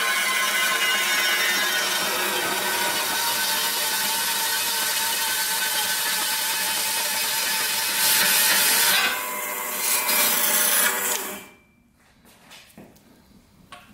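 Horizontal metal-cutting bandsaw running and cutting mild steel angle iron: a steady, dense, hissing blade-and-motor noise, louder for a moment about eight seconds in. The saw stops suddenly about eleven and a half seconds in, leaving a few faint clicks.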